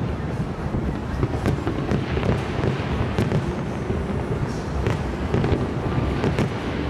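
Fireworks display: aerial shells bursting in a rapid, continuous run of bangs and crackles over a steady low rumble.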